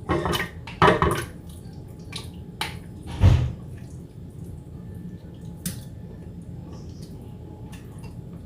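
A spoon scraping and knocking while thick fig-and-garlic purée is spooned from a blender cup into a container, with soft wet plops. There are two scrapes in the first second and one heavier knock about three seconds in, followed by a few light clicks.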